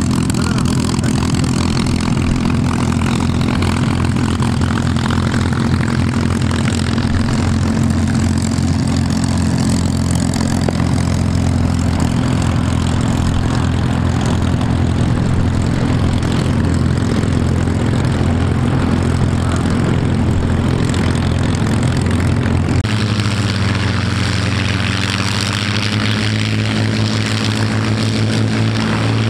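P-51D Mustang warbirds taxiing, their V-12 Merlin piston engines running steadily at low power with the propellers turning. About 23 seconds in, the pitch of the engine note shifts and a higher rushing hiss grows stronger.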